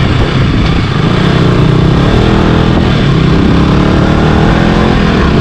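200 cc single-cylinder motorcycle engine running on the move, its pitch rising and falling slightly with the throttle.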